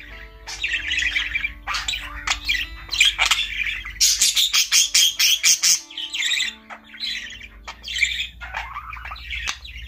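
Budgerigar chattering and squawking almost without pause, a busy run of rapid chirps, clicks and harsh notes. Soft background music plays underneath.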